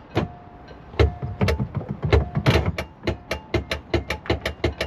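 Broken anchor windlass being tried at its deck switch: a run of sharp clicks that come faster toward the end, with short spells of steady hum. The windlass will not work: its gearbox is seized.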